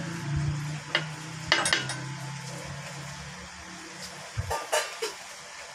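Small metal angle-grinder parts clinking and knocking as they are handled and set down on the work table: a few light clinks, two or three at a time. A steady low hum in the background stops about four and a half seconds in.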